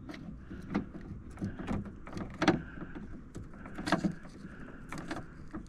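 Plastic trim-removal tool prying at plastic retaining clips between a door's trim cover and its metal frame: a scatter of small knocks, clicks and scrapes as the clip is worked loose.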